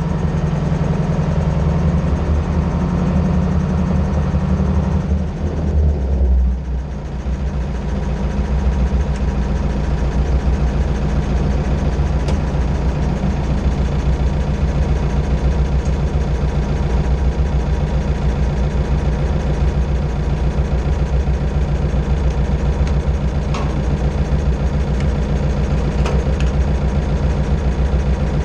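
MB Trac 800 tractor's diesel engine running at a steady idle, heard close up. About five to seven seconds in, the engine note shifts and the level dips briefly, then the engine settles back to an even idle.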